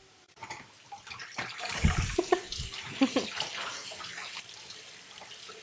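Kitchen tap water running and splashing over canned beans in a strainer as they are rinsed. The water starts about half a second in, is heaviest in the middle and tapers off, with a couple of low thuds about two seconds in.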